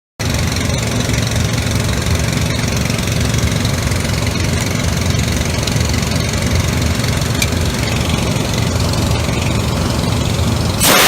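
A machine starts abruptly and runs steadily with a low hum. Near the end a louder, brighter rushing noise comes briefly.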